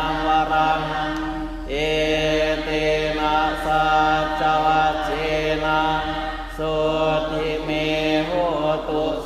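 Thai Buddhist monks and lay followers chanting Pali in unison, a steady recitation held near one pitch. Brief pauses for breath come twice, once under two seconds in and once over six seconds in.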